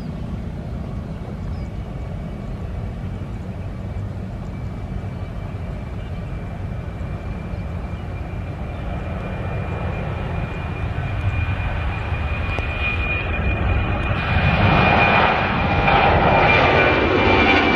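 Boeing 737's turbofan engines at take-off power through the take-off roll and climb-out: a steady low rumble with a thin high whine that grows louder as the jet comes closer, loudest in the last few seconds, where the pitch slides down as it passes overhead.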